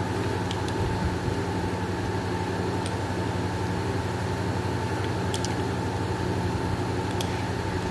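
Steady mechanical hum, like an idling engine or a running fan, holding one even pitch throughout, with a few faint clicks over it.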